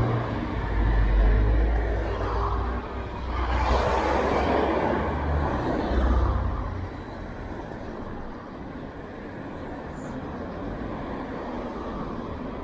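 Street traffic: a motor vehicle's low engine rumble with a vehicle passing close about four seconds in, easing after about seven seconds to a quieter steady traffic hum.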